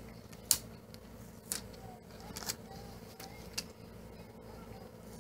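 Clear adhesive tape being handled and pressed onto a glass vase: a few short sharp crackles about a second apart, the first and loudest about half a second in, with some faint short squeaks in the middle.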